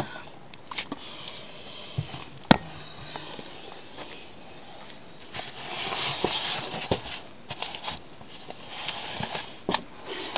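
Fabric storage bins of folded clothes being pulled out of a small closet shelf: rustling and scraping of cloth, with a few sharp knocks, the loudest about two and a half seconds in.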